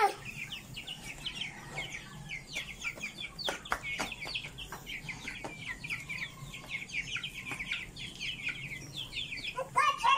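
A small flock of young chickens peeping and clucking continuously in rapid, short, high chirps. A few sharp clicks come about four seconds in.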